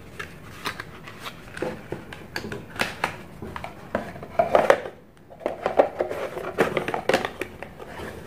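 Cardboard phone-box packaging being handled: irregular taps, knocks and rubbing as the box lid and inner tray are lifted, set down and slid together.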